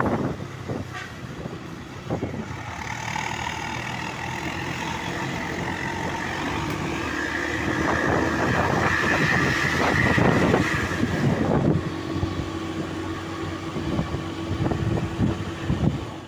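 Large tour bus driving past close by, its engine rumble swelling to a peak about two-thirds of the way in. Long steady high tones sound through the middle.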